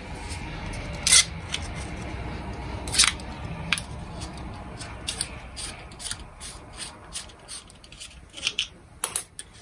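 Clicks and light knocks from handling the angle grinder's disassembled gear housing and its small parts with a small tool: a few sharp clicks, then a run of faint quick ticks and two louder clicks near the end.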